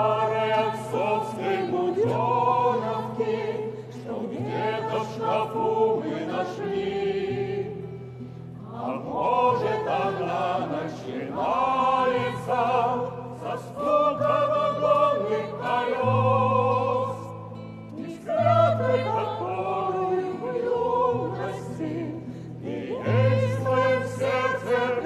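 A choir singing a song in phrases, over an accompaniment with held bass notes that change every second or two.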